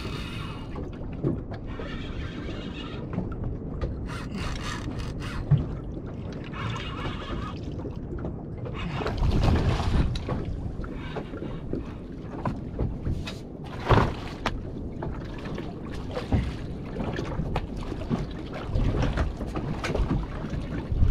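Wind and water noise aboard a small boat while a snapper is played on rod and reel, with short bursts of fishing-reel noise as the fish runs and is wound in. A couple of sharp knocks, the loudest about fourteen seconds in.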